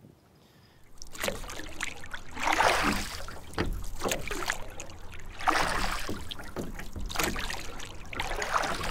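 Water splashing and sloshing around an inflatable kayak, in swells a second or two apart, with a low rumble underneath. The sound starts about a second in and cuts off suddenly at the end.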